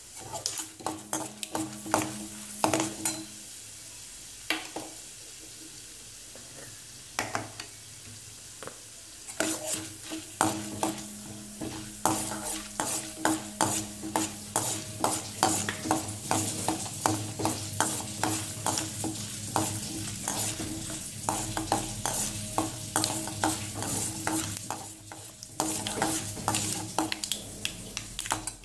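Mustard seeds, urad dal and chana dal sizzling in hot oil in a stainless steel pan while a perforated steel spoon stirs them, clinking and scraping against the metal in quick repeated strokes; the dals are being roasted until golden. The stirring is sparse at first and becomes steady and brisk about a third of the way in.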